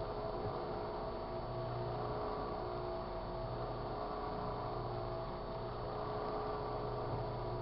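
Sharp Carousel microwave oven running, a steady electrical hum with a few fixed tones over a hiss, and a lower hum that swells and drops every second or so.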